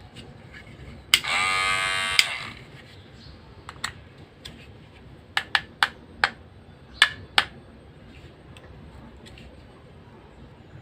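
Electric hair trimmer switched on with a click about a second in, running with a steady motor whine for about a second before it is clicked off. A string of sharp plastic clicks follows as the trimmer is handled.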